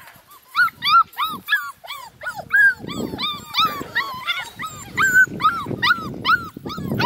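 Lemon beagle puppies yipping while they play-wrestle: a rapid string of short, high-pitched yips and whines, about two a second.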